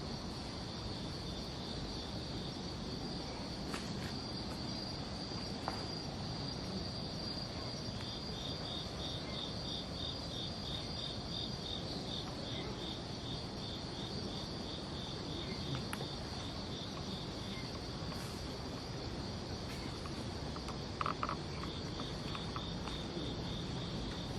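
Night chorus of crickets: one steady high-pitched trill throughout, joined about a third of the way in by a second insect's pulsed chirping at about four pulses a second, which stops and returns near the end.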